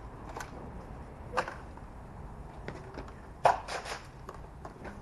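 Scattered sharp snaps and thwacks from Nerf Rival blasters firing foam balls and the balls striking, about half a dozen in all, with a quick run of three about three and a half seconds in.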